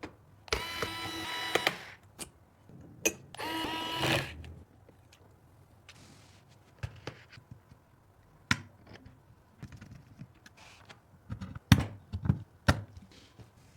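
Computer parts being handled and fitted during a PC build: scattered sharp clicks, snaps and knocks of plastic and metal, with the loudest cluster a couple of seconds before the end. Near the start there are two brief steady tonal screeches about a second long each.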